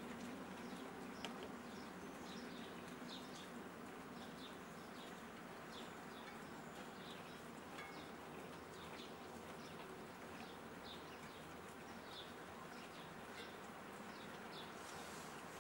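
Light rain falling steadily outdoors, with a small bird giving short, high chirps again and again over it.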